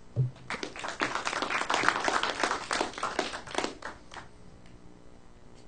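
Audience applauding, a dense patter of clapping that starts about half a second in and dies away around four seconds.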